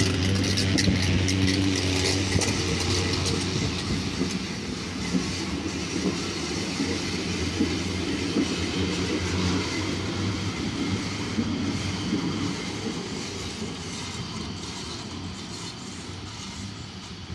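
DVG NF4 low-floor tram running past close by and moving away on its rails. It makes a steady low hum with some clicking from the wheels early on, and fades gradually as it goes.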